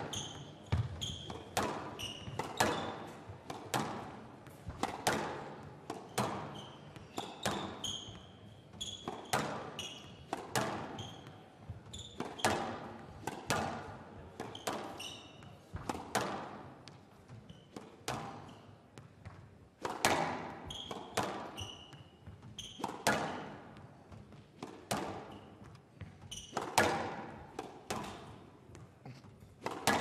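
A long squash rally on a glass court: the rubber ball cracks off rackets and slaps against the front wall and glass side walls again and again, roughly every half second to a second. Short squeaks from shoes braking on the court floor come between the hits.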